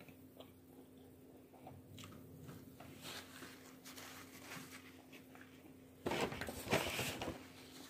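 A person chewing fast food, with faint crackles as she handles a crumpled paper food wrapper. About six seconds in comes a louder second or so of crinkling and crunching.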